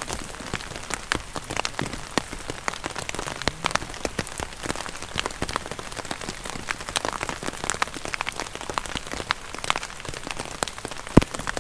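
Heavy rain falling, with many sharp, irregular taps of single drops landing close by over a steady hiss. One louder tap comes near the end.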